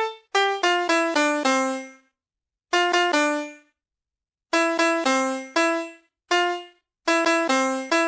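VTech Willis card laptop toy playing single electronic piano-like notes, one per press of its colour keys in free melody mode. The notes come in short, uneven runs of two to five, each dying away quickly, with pauses of about a second between runs.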